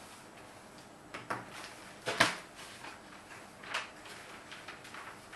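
Room noise at a meeting table: a few scattered knocks and clicks of things being handled, the loudest about two seconds in, over a quiet room background.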